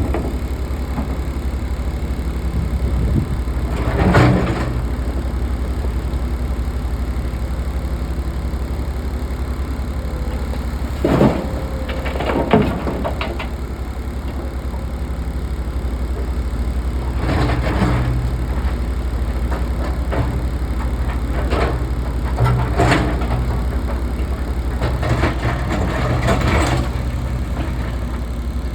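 SDLG 6150 hydraulic excavator's diesel engine running steadily, with short bursts of clattering and rattling every few seconds as it loads a dump truck.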